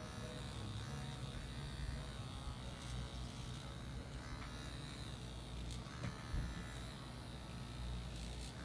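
A Deminuage electric nano microneedling pen buzzing steadily as it is run over the skin of the cheek.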